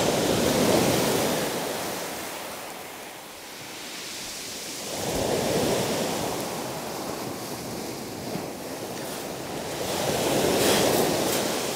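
Small waves breaking and washing up a shingle beach, surging three times about five seconds apart, with some wind on the microphone.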